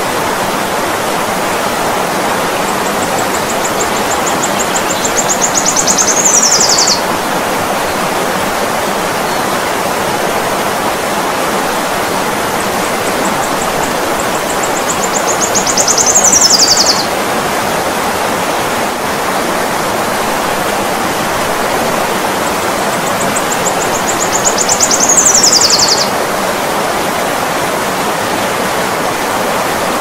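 Steady rushing of a flowing river, with a hummingbird's call three times about every nine seconds. Each call is a rapid high ticking that speeds up and grows louder, then ends in a quick falling squeal.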